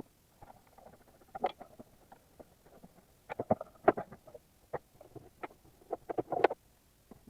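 Irregular clicks, knocks and rattles of hand tools and parts being handled, in small clusters about a second and a half in, around the middle, and near the end.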